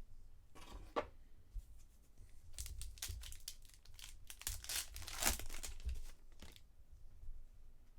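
A trading-card pack wrapper being torn open and crinkled by hand: a short rip about a second in, then a longer run of tearing and crinkling in the middle.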